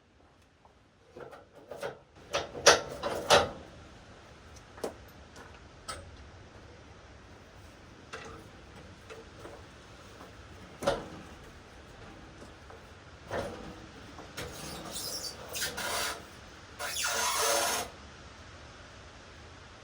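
Wooden slabs or boards being handled at a sawmill, with the mill not running: irregular knocks and short scrapes of wood on wood and metal. One longer scrape comes near the end.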